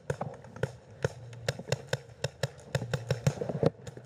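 Paintball markers firing: a rapid, irregular string of sharp pops, several a second.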